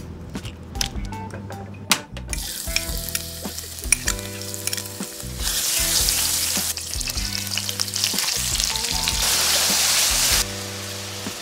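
A few sharp knife clicks cutting pineapple, then shallots and garlic sizzling in hot oil in an enamel pan as they are stirred with a wooden spatula, followed by prawns and squid frying. The sizzle starts about two seconds in, gets louder about halfway and cuts off sharply near the end.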